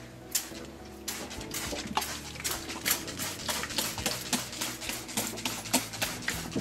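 Hand trigger spray bottle misting water onto model scenery: quick repeated squeezes, each a short hiss, a few a second, over faint background music.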